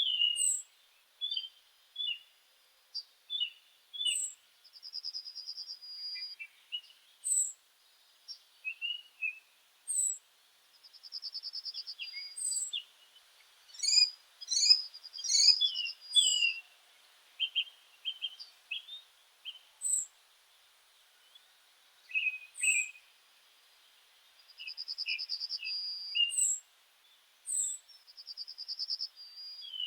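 Several birds singing and calling: short high chirps and whistled notes, with a buzzy trill about a second long repeated several times, and a quick flurry of overlapping notes around the middle.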